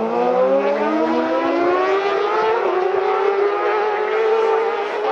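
Racing motorcycle engine accelerating hard, its note rising steadily for about four seconds and levelling off near the end.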